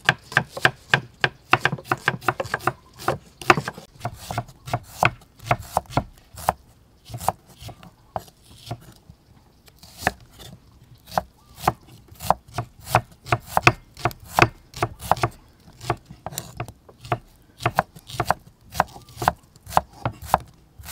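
Kitchen knives slicing shallots on thick wooden chopping blocks: a run of sharp knocks as the blade hits the wood, a few per second, thinning out briefly about eight seconds in.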